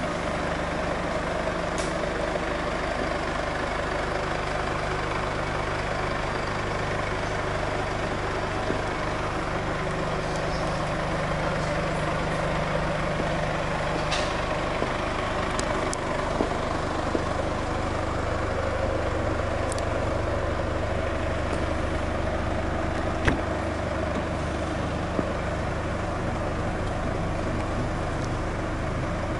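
Four-cylinder diesel engine of an Infiniti Q50 2.2d idling steadily, a low, even hum with a few faint clicks.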